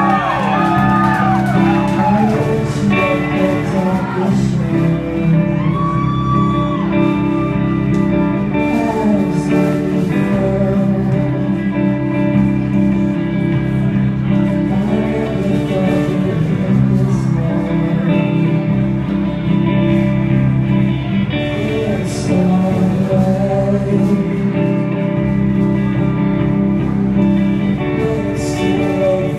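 Live rock band playing: electric guitars, bass and drums, with singing in the first few seconds.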